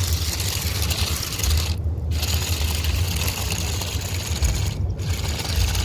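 Mini off-road RC car running: a steady mechanical hiss and scraping over a deep rumble. The higher noise drops out briefly twice.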